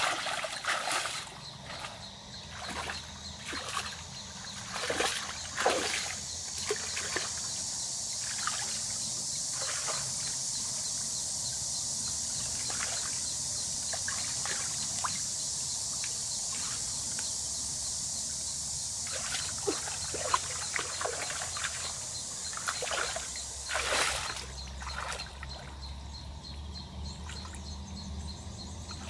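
Water sloshing and trickling, with scattered small splashes that come thicker near the start and again near the end, and a steady high hiss through the middle.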